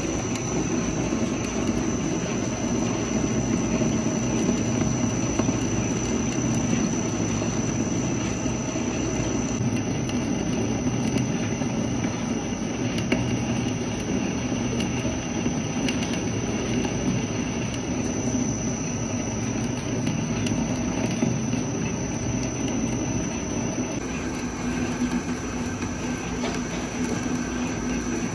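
Metal lathe running while its cutting tool cuts a screw thread into a steel bar: steady machine noise with a thin, high, steady whine.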